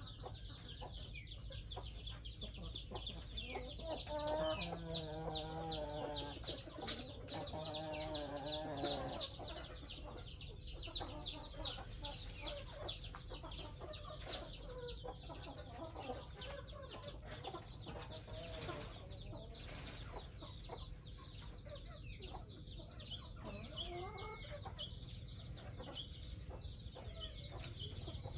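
A flock of chickens calling: a dense, continuous stream of short, high chirps, with a longer wavering call from about four to nine seconds in.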